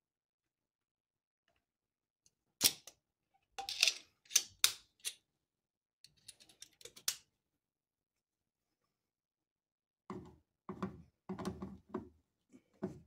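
Handling noise from hand tools: a cluster of sharp clicks and clatters a few seconds in, then a run of duller knocks near the end as a screwdriver is brought up to the receptacle.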